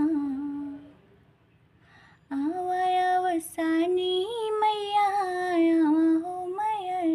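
A woman singing a devotional folk song to the mother goddess, unaccompanied, in long held notes; she pauses for about a second near the start, then carries on singing.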